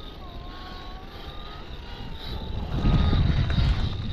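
Electric motor and gearbox of a 1/7-scale RC rock crawler whining, the pitch slowly rising and falling as the throttle varies. About three seconds in, a louder low rumble sets in.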